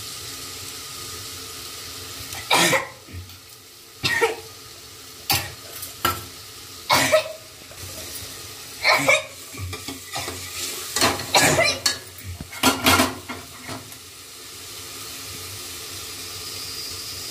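Dry red chillies roasting in a pan on a gas stove with a steady sizzling hiss. About a dozen short, loud sounds break in, several close together in the middle.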